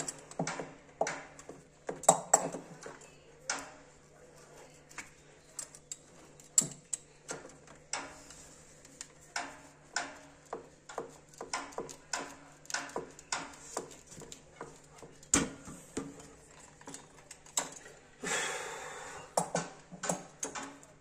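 Hand pliers clicking and knocking irregularly as they grip and work a CPVC pipe and fitting, with a brief louder rustle near the end.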